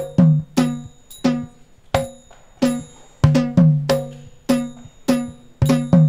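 Drum music: sharp hand-drum strokes, each with a ringing low note, about three strokes a second in an uneven rhythm.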